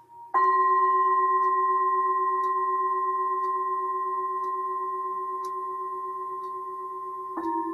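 Metal singing bowls struck in turn. The first is struck about a third of a second in and rings with several steady tones, fading slowly. A second, slightly lower-pitched bowl is struck near the end and rings with a pulsing wobble. A faint tick sounds about once a second throughout.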